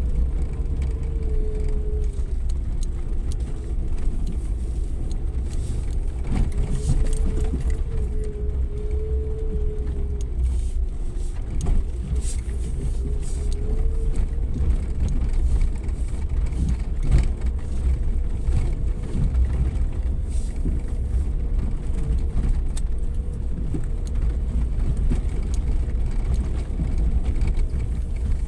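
Suzuki Jimny 4x4 driving off-road: a steady low engine rumble under a whine that slowly rises and falls, with scattered knocks and rattles.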